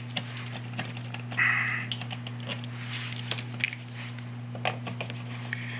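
Light irregular metallic clicks and scrapes of multi-tool pliers working a thick stove cord's ring terminal onto the stove's terminal block, with a short scrape about a second and a half in. A steady low hum runs underneath.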